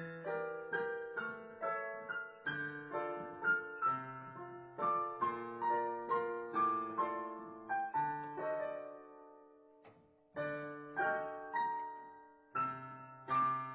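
Digital piano played with both hands: a melody over low bass notes, each note struck and then dying away. About ten seconds in the notes fade into a short pause before the playing picks up again.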